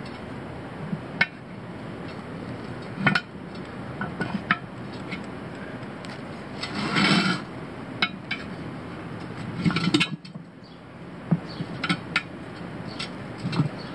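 Steel tire irons clinking and knocking against a steel wheel rim as a tire bead is levered on by hand: irregular sharp metallic clicks, with one longer burst about halfway through.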